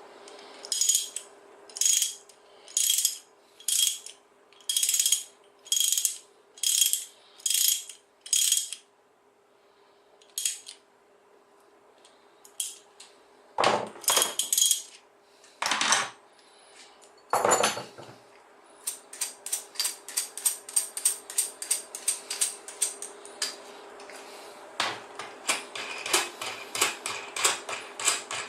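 Socket ratchet wrench clicking in back-and-forth strokes, about one stroke a second. After a pause with a few louder metal knocks, fast continuous clicking follows for the last ten seconds or so.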